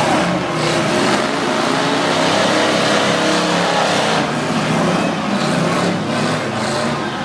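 Demolition derby cars' engines running and revving loudly, with a few sharp knocks from cars hitting each other.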